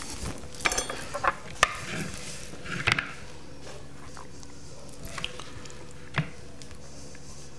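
Utensils clinking and scraping against a clear mixing bowl and the cutting board as crab salad is scooped out onto a bun. It is a string of sharp clinks, busiest in the first three seconds, with two more later.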